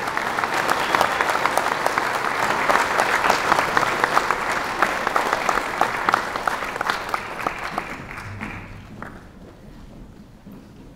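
A crowd applauding, a dense patter of many hands clapping that thins out and dies away about eight seconds in.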